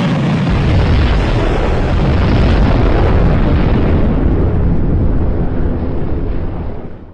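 Missile launch: a loud, steady rocket-motor roar lasting about seven seconds, then cutting off abruptly.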